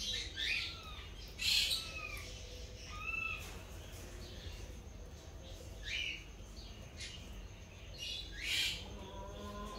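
Small birds chirping in short calls that drop in pitch, about five times, over a steady low hum.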